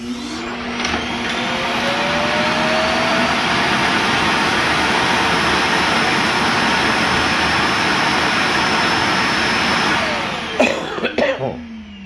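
Roomba's auto-empty Clean Base dock running its suction motor to empty the robot's bin: a loud rushing whoosh that builds with a rising whine over the first couple of seconds, holds steady for about eight seconds, then shuts off, followed by a few sharp clicks and a falling whine.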